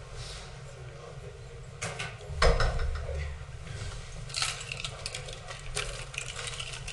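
Scattered clicks and knocks of things being handled, with a louder thump about two and a half seconds in.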